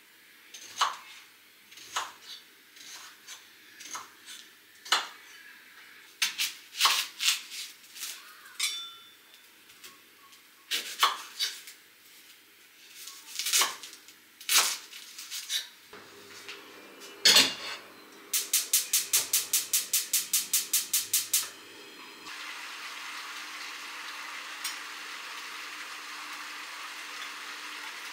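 Kitchen work: dishes and utensils clinking and knocking at irregular intervals. After that comes a rapid, even run of about a dozen clicks. The clip ends with a steady rushing noise that starts about two-thirds of the way in and keeps going.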